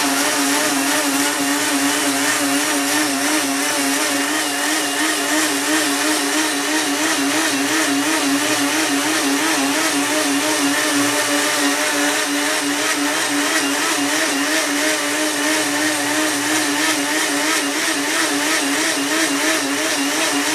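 K-Tech Champ high-power blender running steadily at speed setting 4, blending a smoothie, with a strong steady hum whose pitch wavers slightly over the whir of the blades. It is switched off at the very end and the motor winds down.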